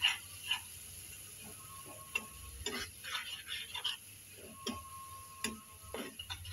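A slotted metal spatula scraping and knocking against a kadai while stirring a thick frying onion-tomato masala, in an irregular run of quick scrapes and clicks.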